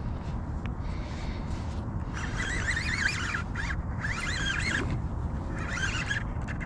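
Birds calling in several bursts of fast, wavering, chattering calls from about two seconds in, over a steady low rumble.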